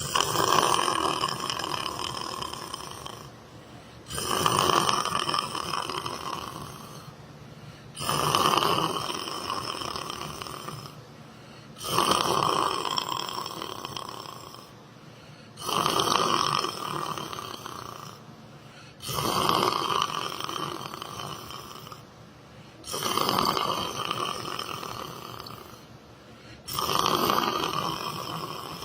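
A sleeping person snoring steadily, about one snore every four seconds. Each snore starts abruptly and fades out over a few seconds, with a short quiet pause before the next.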